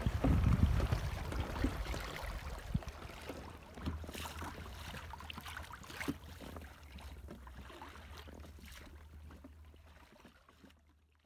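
Wind buffeting the microphone and water splashing and rushing close past a small boat, with gusts strongest in the first couple of seconds. It then settles to fainter water noise with a few small taps and fades out just before the end.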